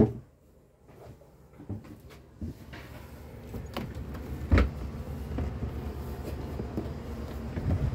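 Knocks and thumps from a phone being handled and carried up out of a yacht's cabin, the loudest about four and a half seconds in. From about three seconds on, wind rumbles on the microphone out in the open cockpit.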